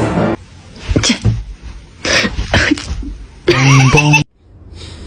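Several short, sharp sneezes, then a louder wavering, pitched cry about three and a half seconds in that cuts off suddenly.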